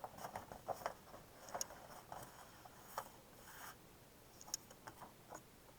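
Faint rustling and small clicks of paper and card being handled as the contents of an envelope are sorted through, with a slightly longer rustle about three seconds in.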